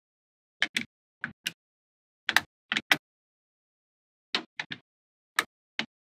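Small magnetic balls clicking sharply as they snap together, about a dozen clicks in quick pairs and clusters with pauses between.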